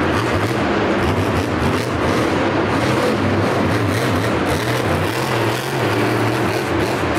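Monster truck's supercharged V8 engine running loud and deep, its pitch rising and falling as the throttle is worked while the truck drives across the dirt arena floor.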